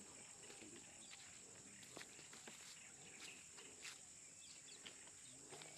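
Near silence: faint rural outdoor ambience with a steady high-pitched hum and a few soft scattered ticks.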